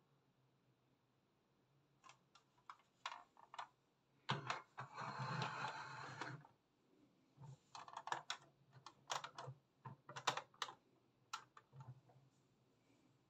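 A hard plastic toy bus being handled: scattered light clicks and taps, with about two seconds of scraping and rustling a little over four seconds in.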